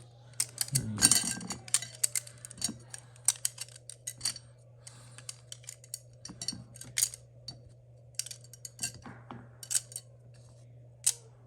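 Small plastic cube stands and their packaging being handled: irregular sharp clicks and taps of hard plastic, with a brief rustle of packaging about a second in.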